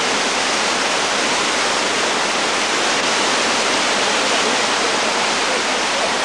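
Steady, loud rushing of water in a thunderstorm, an even noise with no single drops or thunderclaps standing out.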